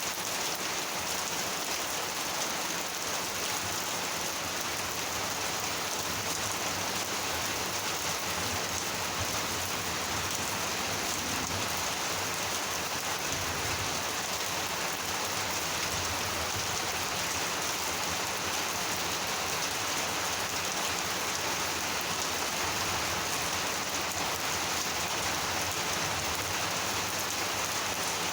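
Steady, heavy monsoon rain falling and pattering on surfaces, an even rush without distinct thunderclaps.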